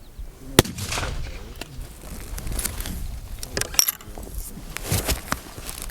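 A single rifle shot about half a second in, followed by a scatter of light metallic clicks and clinks.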